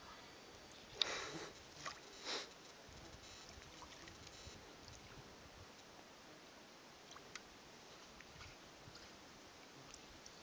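Long-handled scoop net splashing in shallow pond water: a sharp splash about a second in, a smaller one, and another a little over two seconds in, then faint steady hiss with a few light ticks.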